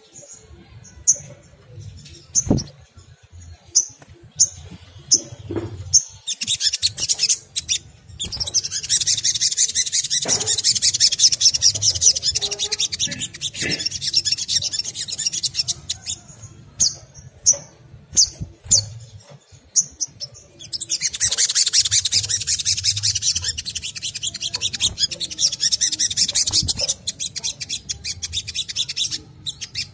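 A sunbird calling. It opens with sharp high chips about once a second, then breaks twice into long, rapid, high-pitched twittering chatter, with more chips between the two bursts.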